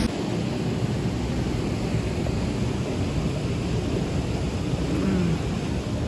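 Steady rushing of a waterfall: a dense, even noise heavy in the low end, with no breaks.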